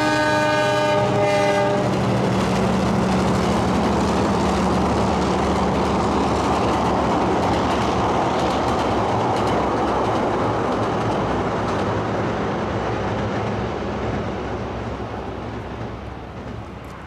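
A Da-class diesel-electric locomotive's multi-tone air horn sounds briefly and cuts off about two seconds in. The locomotive and its train then run past with a steady engine rumble and wheel noise that fades away near the end.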